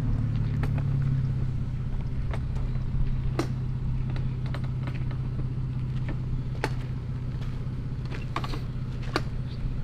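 Toyota Tacoma pickup idling with a steady low hum, with scattered light clicks and knocks from the hard cases on its roof rack being handled.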